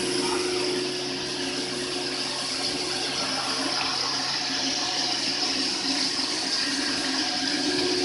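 CNC stone machining center running steadily: a constant motor hum under the hiss of coolant water streaming over the cut.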